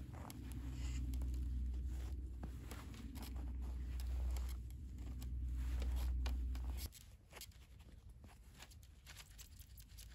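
Twine being wound and pulled tight around the bundled tops of a stick tepee frame, with many small creaks, crackles and rustles from the sticks and rope. Under it a steady low rumble cuts off abruptly about seven seconds in.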